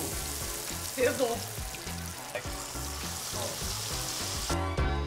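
Battered chicken karaage deep-frying in hot oil in a small electric deep fryer: a steady sizzling hiss that cuts off sharply near the end.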